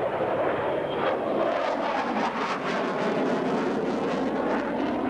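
F/A-18 Hornet fighter jet flying a low display pass: a steady, loud jet engine roar with a crackling rasp around the middle.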